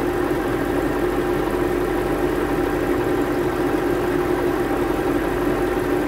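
BMW 7 Series (E66) engine idling with the air conditioning running on high, a steady even hum, while refrigerant flows from a charging can through the hose into the low-pressure port.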